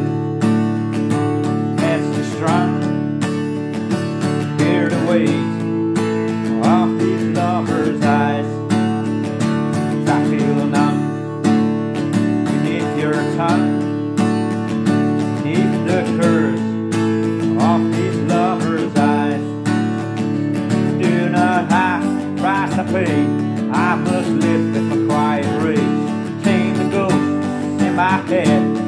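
Steel-string acoustic guitar strummed steadily in chords, with a harmonica played from a neck rack carrying a melody with bent notes over it.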